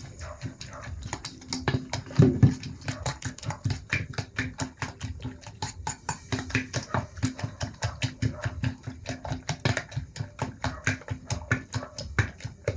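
Eggs being beaten by hand in a bowl: the utensil taps against the bowl in a rapid, even rhythm of about five strokes a second.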